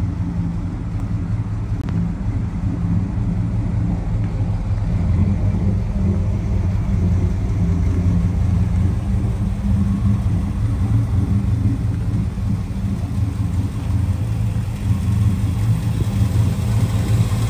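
1983 Dodge Power Ram's carbureted V8 engine idling steadily.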